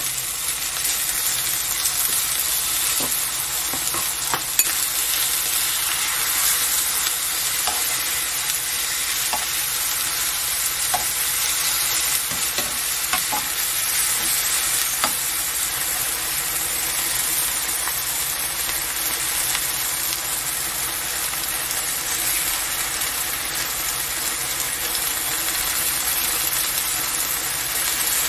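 Starch-coated enoki mushrooms sizzling steadily in oil in a nonstick frying pan on low heat, with a few light clicks of a wooden spoon and tongs against the pan as the sauce is spread.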